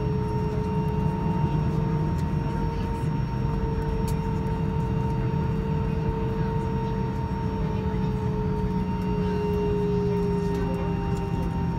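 Airbus A319 jet engines at idle during taxi, heard inside the cabin: a steady low rumble with two steady whining tones, the lower one drifting slightly in pitch.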